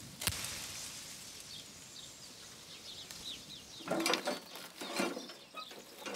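Quiet outdoor ambience with a few faint bird chirps, then from about four seconds in, a run of knocks and rattles as gear is handled at a utility vehicle's cargo bed.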